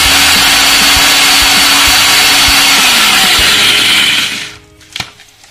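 Indian mixer grinder (mixie) running with its steel jar, grinding fresh coriander, mint, ginger and green chillies into a paste. It runs loud and steady, then switches off about four seconds in.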